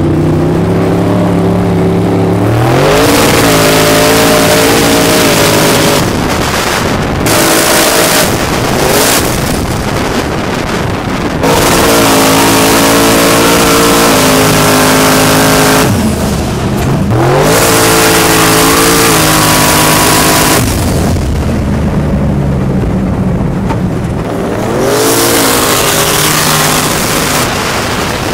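Twin-turbocharged 540-cubic-inch big-block Chevy V8 sand truck making repeated hard pulls, the engine note climbing then dropping several times, heard from inside the cab with a heavy rush of wind and sand between and over the pulls.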